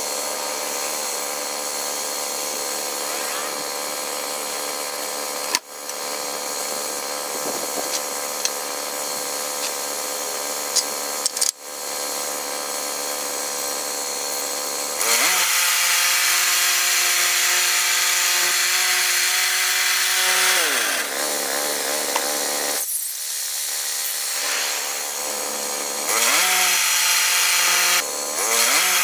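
Portable bandsaw sawmill's gasoline engine running as the band blade cuts along a log, broken by a couple of abrupt cuts in the sound. About halfway through the engine speeds up and runs louder under the cut, drops in pitch a few seconds later, then speeds up again near the end.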